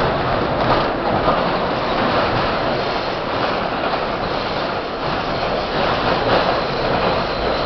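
R-32 New York City subway train running at speed through a tunnel, heard from inside the leading car: a steady, even rumble of wheels on rails.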